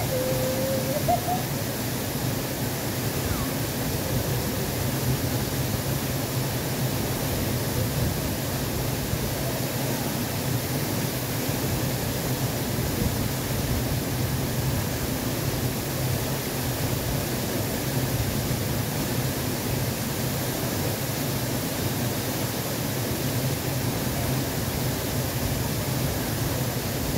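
Steady rushing noise that holds an even level throughout, with a faint short rising tone about a second in.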